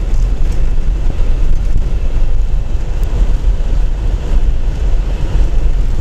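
Steady low rumble inside a moving car's cabin: engine and tyres running on a snow-packed highway.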